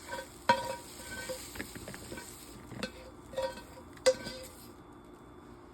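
A series of light clinks and taps from small hard objects, each ringing briefly. The sharpest comes about four seconds in.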